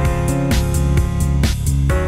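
Instrumental background music with a steady beat, playing over the closing title card.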